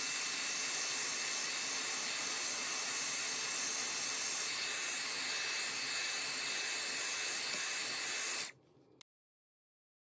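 Compact handheld hair dryer blowing steadily with a faint high whine, warming a phone's back glass to soften its adhesive; it cuts off about eight and a half seconds in.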